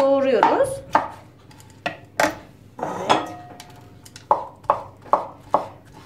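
Kitchen knife chopping oyster mushrooms on a wooden cutting board: about ten sharp knocks of the blade on the board, coming about two a second in the second half.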